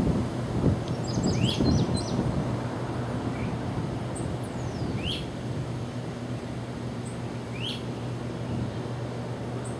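Birds calling over a steady low engine hum from diesel locomotives working in a rail yard. One bird gives a rising call three times, about every two and a half seconds, between short high chirps. A gust of wind rumbles on the microphone at the very start.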